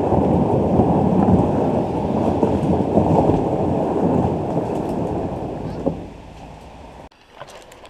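A canoe hull dragged over a gravel track, making a loud, rumbling scrape. It fades as the canoe moves away, then cuts off about seven seconds in, followed by a few sharp clicks.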